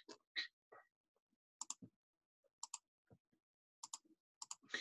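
Computer mouse clicking: four faint double clicks, each a button press and release, about a second apart.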